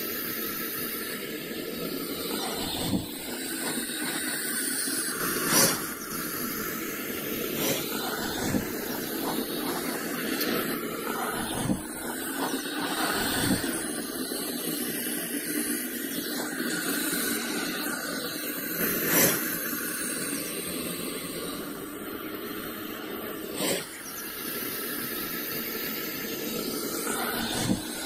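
Anaconda hissing: a long, steady hiss with a few brief, sharp louder pops scattered through it.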